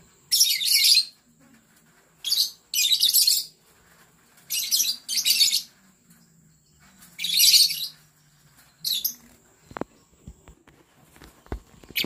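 A flock of lovebirds giving shrill, harsh chattering calls in six or seven short loud bursts, with quiet gaps between them.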